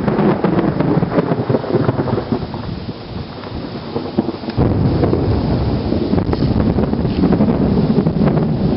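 Thunder rumbling over wind buffeting the microphone; the noise dips in the middle, then comes back loud all at once about four and a half seconds in.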